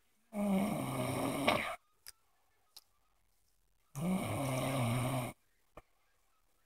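Loud snoring: two long, rasping snores about three and a half seconds apart, each lasting about a second and a half, with faint clicks in the quiet between them.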